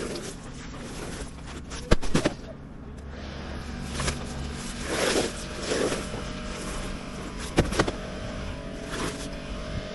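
An engine running steadily, with a few sharp knocks: one about two seconds in and a quick pair about three quarters of the way through.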